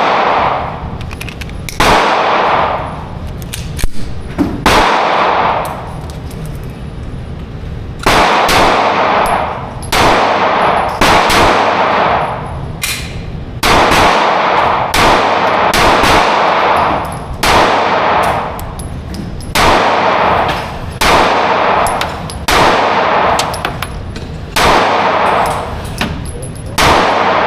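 Ruger Max-9 9mm pistol fired in slow single shots, about fifteen over the stretch and one to two and a half seconds apart, each shot trailing off in a long ringing echo.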